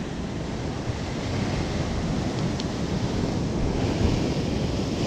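Rough sea surging and breaking white against rocks below, a steady wash of surf, with wind rumbling on the microphone.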